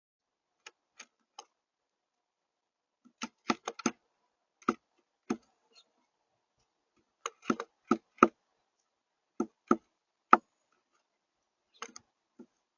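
Birds pecking at a feeder: sharp, irregular taps, some single and some in quick runs of two or three, faint at first and louder from about three seconds in.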